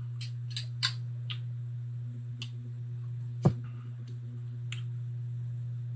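Small wet clicks and lip smacks from a person tasting hot sauce off a spoon, with one sharper knock about three and a half seconds in, over a steady low hum.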